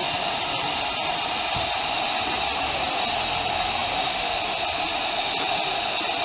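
Steady hiss of steam escaping from a 15-inch gauge steam locomotive standing in steam, with a whistling edge to it.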